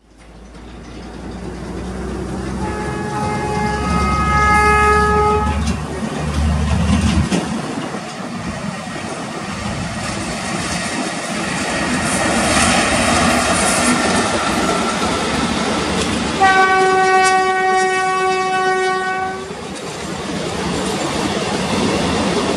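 WAG-7 electric locomotive speeding past with a passenger train, sounding its horn in two long blasts of about three seconds each, a few seconds in and again about two-thirds of the way through. A third blast starts at the very end. Under the horn runs the steady loud running noise of the locomotive and coaches.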